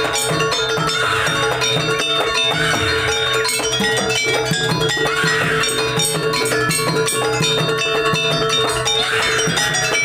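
Music with instruments and a steady beat.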